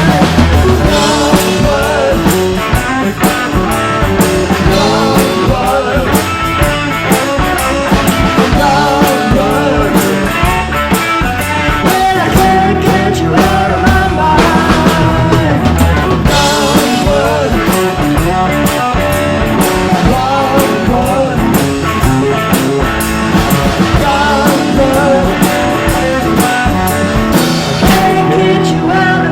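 A live rock band playing with drum kit and guitar, without sung words.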